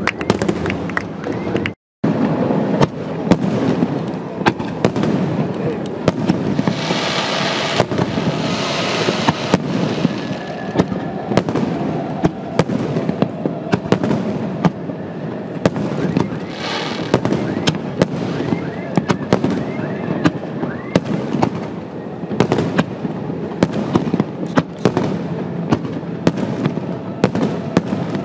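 Fireworks display: aerial shells bursting in a dense, continuous barrage of bangs and crackles, with thicker crackling stretches in the middle. The sound cuts out for a split second about two seconds in.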